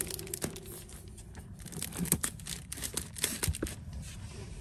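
Hands arranging manga volumes and a bookend on a shelf: soft rustling with scattered small taps and clicks, which cut off suddenly near the end.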